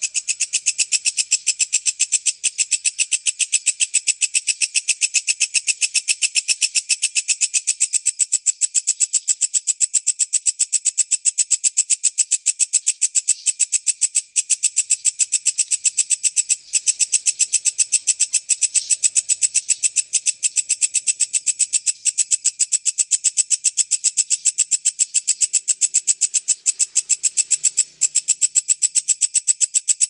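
Walang kecek bush cricket stridulating in a fast, even, high-pitched pulsing chirr that keeps on without letup, broken only by three split-second gaps.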